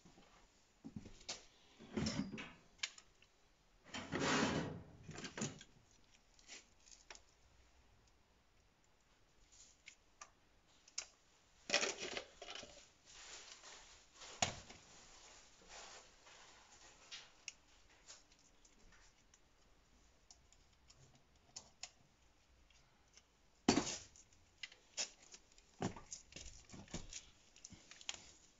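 Irregular light clicks, taps and rattles of small parts and tools being handled during hand work, with a few louder rustling knocks scattered through.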